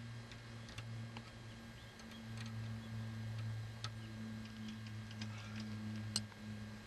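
Scattered light clicks and ticks of metal control linkages and ball links being moved by hand on a homemade coaxial model helicopter's rotor head, over a steady low hum.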